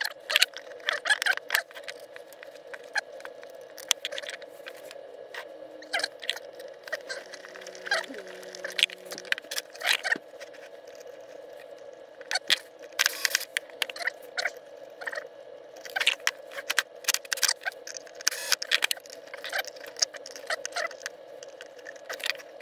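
Workbench handling noise: irregular clicks, knocks and scrapes as wooden frame parts, pliers and a blender motor are handled and the motor is wired and fitted into the wooden frame, over a steady hum.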